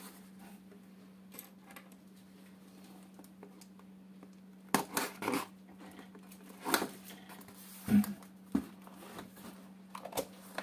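A cardboard lamp box being handled and its end cut and pried open: a run of short scrapes, clicks and knocks of cardboard from about five seconds in, over a steady low hum.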